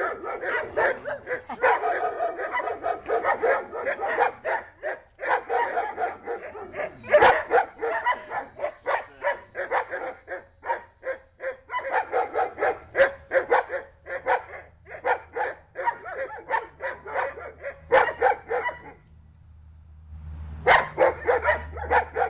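Rhodesian Ridgeback barking rapidly and without letup, several barks a second, stopping for about a second and a half near the end before starting again.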